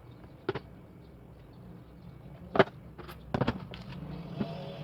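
A few sharp knocks and clunks of objects being handled and set down on furniture during cleaning. The loudest comes about two and a half seconds in, followed by a quick cluster of knocks about a second later.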